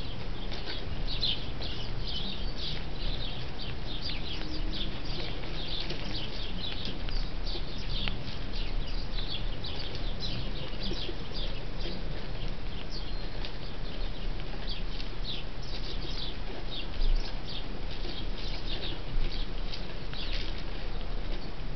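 A flock of sparrows chirping at a bird feeder, many short overlapping chirps without pause.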